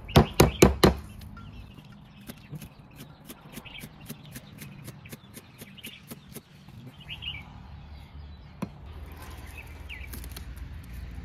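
Large kitchen knife chopping lemongrass on a thick round wooden chopping block: four heavy chops at the start, then a long run of quick, lighter chops, about five a second, and one more heavy chop later on.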